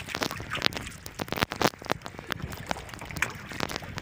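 A run of quick, irregular taps and splashes as a small fish is pulled from the sea on a handline and swung aboard a wooden outrigger boat.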